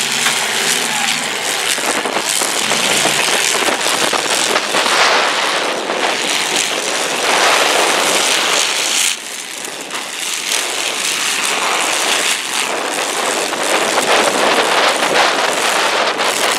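Several demolition derby cars' engines revving hard as they drive and ram on the dirt arena, a loud, rough, continuous din. It drops suddenly about nine seconds in, then builds again.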